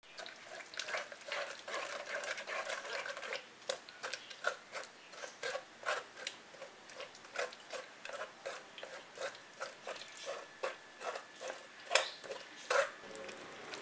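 Wooden spoon pressing and scraping thick cooked tamarind pulp through a metal mesh strainer. It is a dense scraping at first, then settles into even strokes about twice a second, with two sharper knocks near the end.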